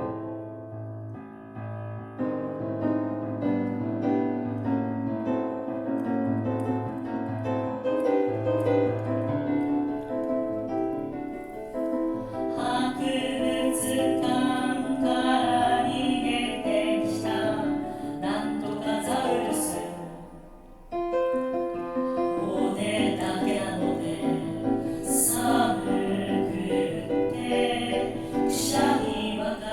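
Piano accompaniment playing alone at first, then a children's song sung in several choir parts by one multitracked singer coming in about twelve seconds in. The music briefly drops out around two-thirds of the way through before the singing and piano resume.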